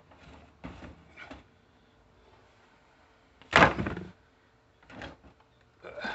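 A few short knocks and clunks, like hard objects being handled or set down, with one loud bang about three and a half seconds in.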